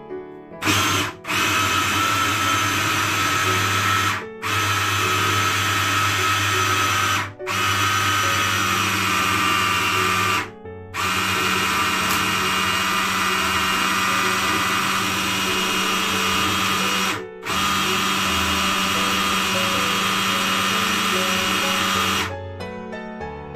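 Hand blender with a chopper bowl attachment running, its motor grinding raw chicken with iced water and seasonings into a smooth meatball paste. It starts just under a second in, cuts out briefly about five times as the button is let go, and stops about a second before the end.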